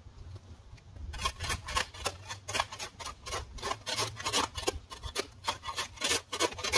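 Rhythmic rasping, scraping strokes, about four a second, starting about a second in.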